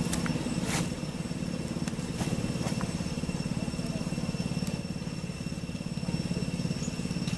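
A small engine idling steadily with a fast, even low putter, with a thin steady high whine over it and a few faint ticks.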